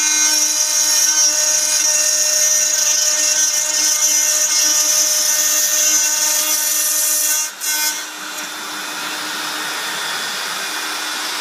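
CNC router spindle with a small end mill cutting 3 mm acrylic sheet: a steady high whine over a hiss. About seven and a half seconds in it dips briefly, then goes on as a quieter, even rush.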